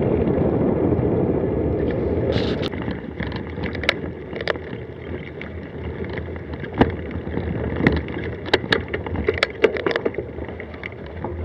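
Bicycle riding along, with wind and tyre rumble on the microphone for the first couple of seconds. The rumble then drops, and scattered sharp clicks and rattles from the bike come through as it rolls over a rough dirt track.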